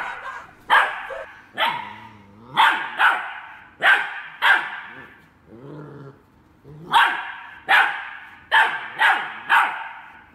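A young dog yapping in short, sharp, high barks, about a dozen in two quick runs with a pause in the middle. Twice between barks there is a lower, drawn-out growl.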